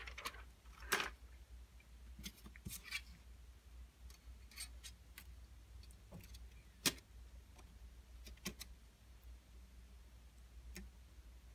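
Faint, scattered light metallic clicks and taps as the metal backplate is pressed and fitted onto an iPhone 6s Plus display assembly, with one sharper click a little past the middle.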